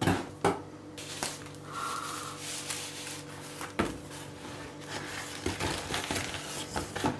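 Corrugated cardboard and tissue-paper packing being handled: a cardboard tube is pulled from a box and unrolled, with rustling and scraping and several sharp taps.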